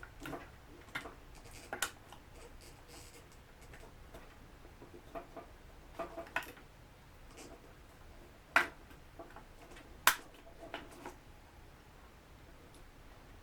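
Scattered light clicks and taps of small tools and plastic parts being handled while a DJI Mavic Pro drone is taken apart, with two sharper clicks about nine and ten seconds in.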